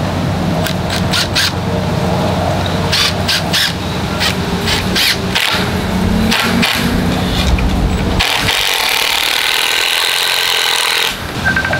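Cordless drill running under load as it drives into a wooden branch perch. Its low motor hum drops out about eight seconds in.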